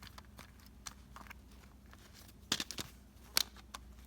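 Bubbles of a hard-shell pop-it fidget being pressed, giving sharp popping clicks at irregular intervals, several in a quick cluster in the second half.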